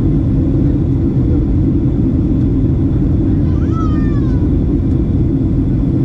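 Steady low roar of a Boeing 737 airliner cabin in flight, engine and airflow noise heard from a window seat. About three and a half seconds in comes one brief high-pitched cry that falls in pitch.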